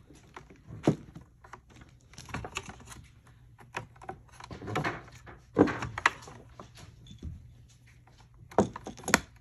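Cable handling: a network cable being wrapped by hand around the bracket frame of a Garmin LiveScope ice-fishing kit. It gives scattered taps, clicks and rustles, with a sharper knock about five and a half seconds in and two more near the end.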